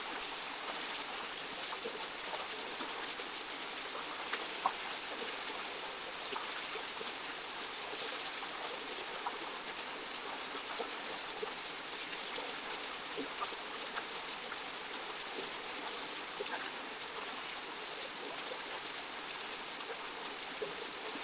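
Creek water rushing steadily over rocks, an even, unbroken hiss of flowing water with a few faint clicks scattered through it.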